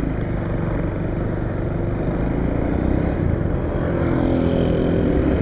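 Motorcycle engine running steadily while riding, with rushing road and wind noise.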